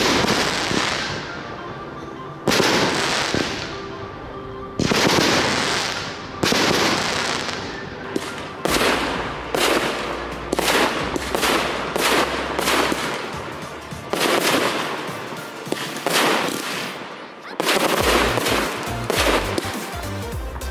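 Aerial fireworks shells bursting: four big bangs a couple of seconds apart, each fading away, then a quicker run of about two bursts a second, and near the end a dense stretch of rapid crackling bursts.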